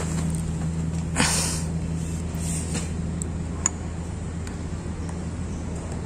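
Steady low machine hum, with a short rustle about a second in and a single sharp click a little past halfway.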